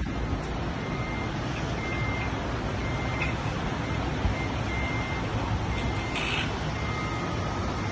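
City street traffic, a steady rumble and hiss, with a short high electronic beep repeating about once a second.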